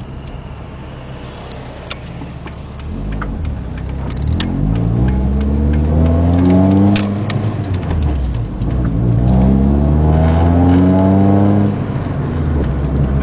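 Ford Escort ZX2's four-cylinder engine, heard from inside the car, pulling away: the revs climb, fall off at a gear change about seven seconds in, climb again and fall off at a second shift near the end.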